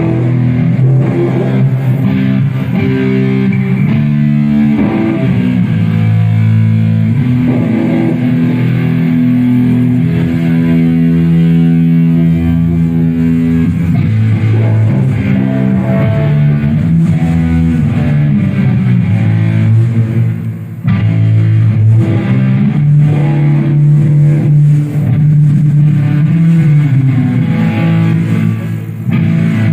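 Live rock band's amplified electric guitar and bass playing loud sustained chords at a sound check.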